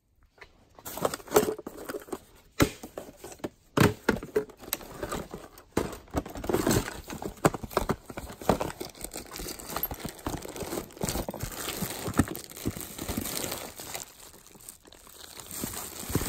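Plastic bags and packaging crinkling and rustling as hands rummage through a packed box, starting about a second in, with frequent sharp clicks and knocks of items being shifted.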